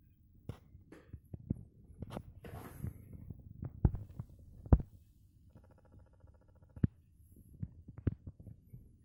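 Handling noise of a plastic electric toothbrush and its charging stand: irregular knocks and clicks, the loudest two about four and five seconds in, with a short rustle before them. About six seconds in comes a brief pulsing buzz lasting just over a second.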